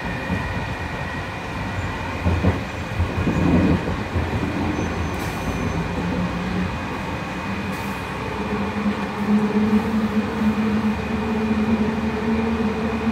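JFK AirTrain car running along its elevated guideway: a steady rumble and rolling noise, with a pitched electric whine joining in about two-thirds of the way through.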